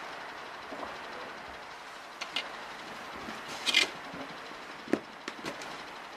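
Hands breaking up and crumbling compacted, damp beetle-breeding substrate in a plastic bin: soft rustling, with a few short scrapes and crunches, the loudest a little past the middle, over a steady hiss.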